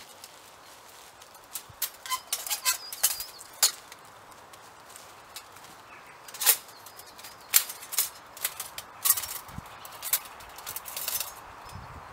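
Bushbox XL folding stainless-steel pocket stove being unpacked and unfolded by hand: a series of sharp metallic clicks and clinks with brief ringing as its thin panels are opened out and snapped into place.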